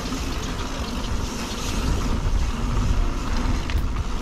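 Mountain bike rolling fast down a paved alley: a steady rush of tyre noise on the pavement with wind rumbling on the bike-mounted camera.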